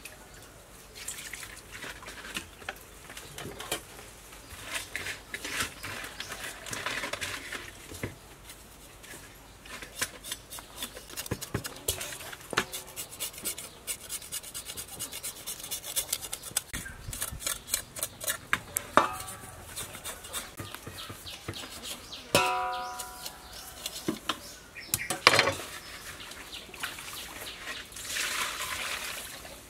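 Small fish being scrubbed with salt in a stainless steel bowl: quick rubbing and scraping strokes, with the metal bowl clanking and ringing twice about two-thirds of the way through. Near the end, water is poured from a dipper into the bowl over the fish.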